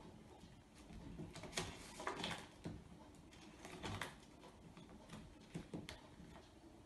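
Faint, irregular taps and rustles of a paper communication board being handled, its pages lifted and flipped.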